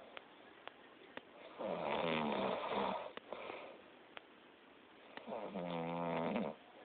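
A sleeping person snoring loudly: two long snores, one starting a little over a second and a half in and the other about five seconds in, each lasting over a second, with quiet breathing between.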